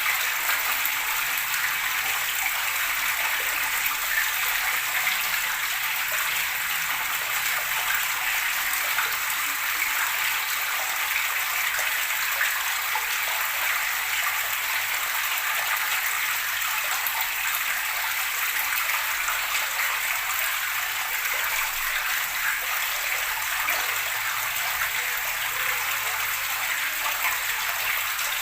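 Gurgling water flowing steadily and without a break.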